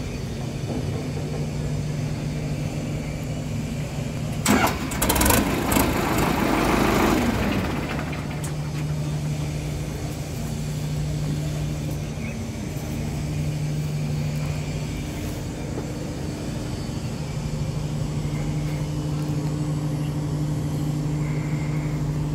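ACE DI 6565 tractor's diesel engine idling steadily. About four seconds in, a loud rushing, clattering burst with a few sharp knocks covers it for roughly three seconds, then the idle carries on.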